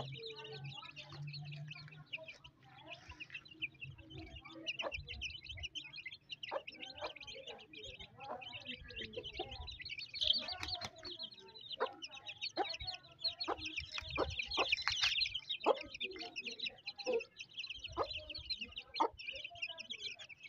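A brood of chicks peeping continuously and high over low clucking from an Aseel hen. Sharp taps about once a second come from beaks pecking at a clay feed dish.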